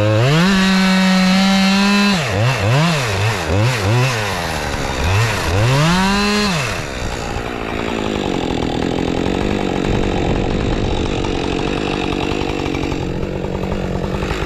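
Husqvarna 550 XP 50cc two-stroke chainsaw at high revs, blipped down and back up several times, then held in a cut through wood with the engine working under load, in a cut the owner says the small saw isn't managing.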